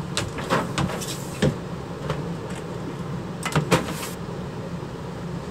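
Cardboard box and plastic storage bin being set down and shifted on a steel-topped workbench: a few short knocks and scrapes, over a steady low hum.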